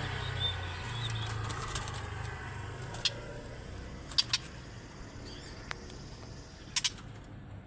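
A murai batu (white-rumped shama) chick fluttering its wings in a handful of short, sharp bursts: once about three seconds in, twice near four seconds and twice near the end. Under them is a faint low hum that slowly fades.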